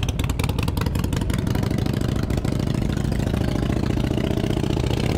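Motorcycle engines idling: a steady low drone, with a rapid, uneven pulsing for the first couple of seconds.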